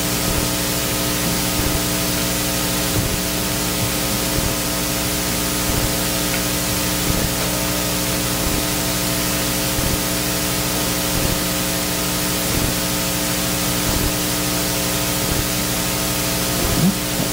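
Steady hiss with an electrical hum underneath: the background noise of the recording or sound system, with nothing else clearly standing out.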